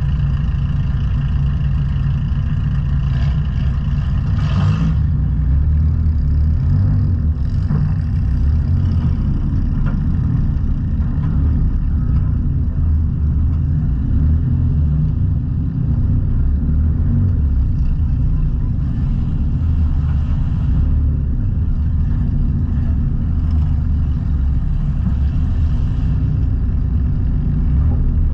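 A junk race car's engine idling and running at low speed, heard from inside the stripped-out car as a steady deep rumble.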